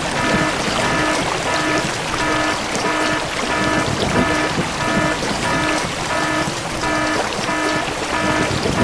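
Background music built on a short repeating tone pattern, about two pulses a second, over a steady rushing noise.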